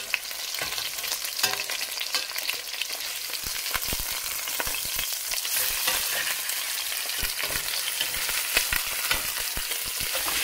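Veal chops frying in hot oil in a stainless steel pot: a steady sizzle with many sharp crackles and pops, growing busier about halfway through, and a metal spatula scraping the pot as the chops are moved and lifted.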